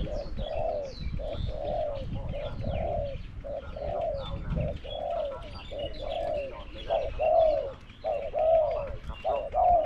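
Spotted doves cooing: a caged decoy dove and a wild one that has come to it, in a steady run of short, arched coos about two a second. Small birds chirp faintly above.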